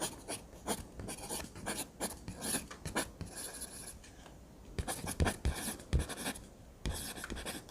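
Drawing strokes scratching across paper in quick, irregular runs, several a second, with a few soft knocks against the desk in the second half.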